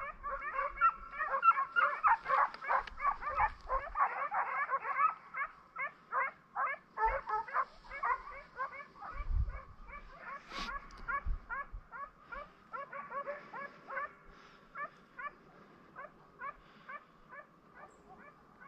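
A pack of hunting hounds giving tongue in full chase on a rabbit's trail: many rapid, high yelps overlapping at first, then thinning to a steady string of single yelps that grow fainter as the pack moves away.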